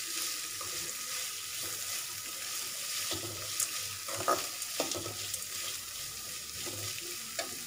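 Sliced onions sizzling in hot oil in a metal kadai as they are sautéed, stirred with a slotted metal spoon, with a few scrapes and taps of the spoon on the pan around the middle.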